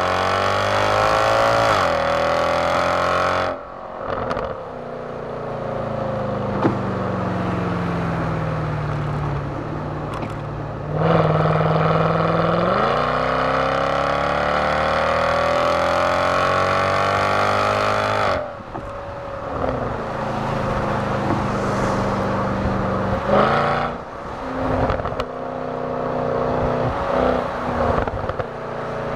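Mercedes-Benz CL63 AMG's naturally aspirated V8 on its stock exhaust, heard from inside the cabin under hard acceleration. The revs climb for a few seconds and cut off abruptly as the throttle closes, then the engine runs lower with its pitch slowly falling. About eleven seconds in, a second long pull climbs for some seven seconds and cuts off again. After that the engine runs at part throttle, with a couple of short blips near the end.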